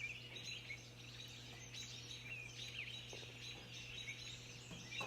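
Songbirds chirping faintly in the pre-dawn chorus: many short high calls, a few sliding quickly in pitch, over a low steady hum.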